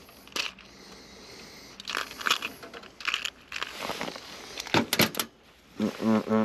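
Rummaging for and handling small screws and hardware, with scattered clicks and rattles, then near the end a cordless drill/driver running in short bursts, driving screws to mount a general purpose relay.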